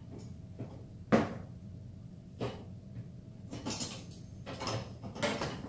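Knocks and clatter of things being handled in a kitchen: a sharp knock about a second in, another a little over a second later, then a run of softer knocks and rustles near the end.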